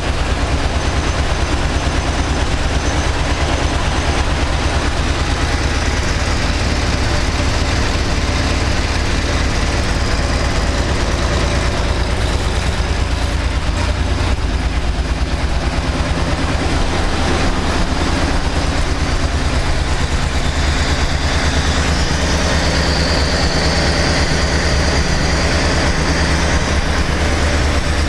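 GM 3.4-litre SFI V6 idling steadily while still cold. The owner says this engine runs rough, farting and popping, only when cold, and suspects a wire missed when he cut down the harness.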